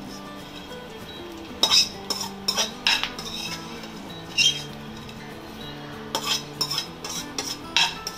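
A metal spoon scrapes and clinks against a non-stick kadhai in irregular strokes as fried gond is scooped out of the ghee.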